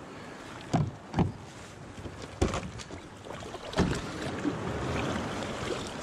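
Four sharp knocks of gear being handled and set down on a Hobie Outback kayak's plastic deck, the first two close together, over steady wind and surf noise.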